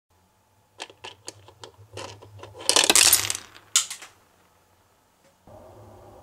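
Small hard pieces dropping and clattering on a hard surface: a run of sharp clicks and rattles that thickens into a dense scatter about three seconds in, then one sharp click.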